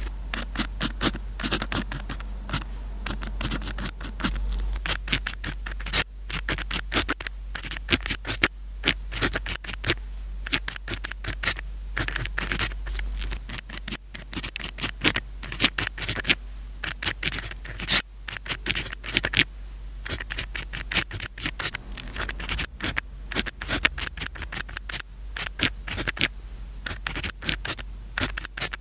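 Pen writing on paper close to the microphone: quick irregular runs of scratchy strokes, broken by short pauses.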